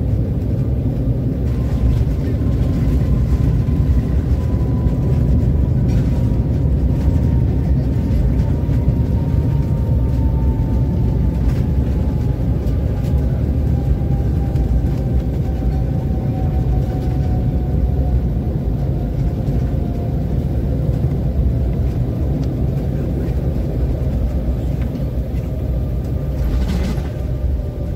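Cabin noise of an Embraer 195 airliner rolling out after landing: a loud, steady low rumble from the wheels on the runway, with a thin engine whine falling slowly in pitch as the engines spool down. A brief knock sounds near the end.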